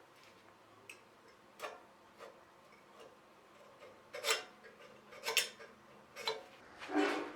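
Irregular metallic clicks and clinks of tools and loose hardware being handled while dismantling an all-metal desk, about seven knocks spread out, louder in the second half.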